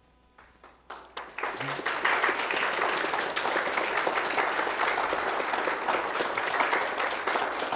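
Audience applauding: a few scattered claps about a second in quickly build into steady, dense applause.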